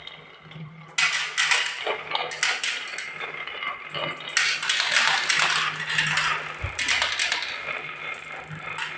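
Marbles rolling and clattering down a wooden marble run track, a busy stream of small hard clicks and rattles starting about a second in.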